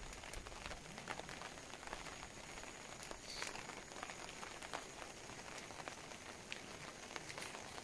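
Steady rain falling, with many separate drops heard as short sharp ticks.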